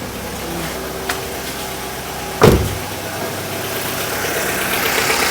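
Chevrolet Lacetti engine idling after a failed spark plug was replaced with a spare, with one loud thump about two and a half seconds in. The engine sound grows louder near the end.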